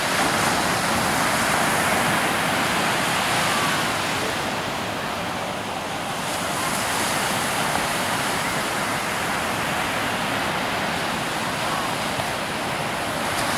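Sea surf: small waves breaking and washing up a sandy beach, a steady rush that eases slightly midway and builds again.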